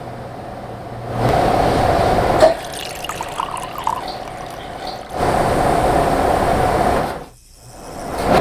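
Water running in two spells, with small drips in between. It cuts off sharply near the end.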